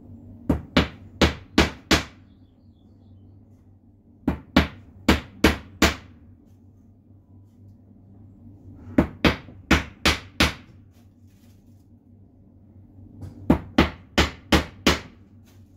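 Claw hammer driving nails into a pine board by hand: four runs of five or six sharp blows, about three a second, with pauses of a few seconds between runs.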